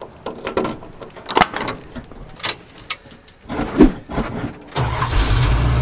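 Clicks, knocks and key jingling in the cab of an old Dodge pickup, with a few short high beeps midway. About five seconds in, the truck's engine starts and runs with a steady low rumble.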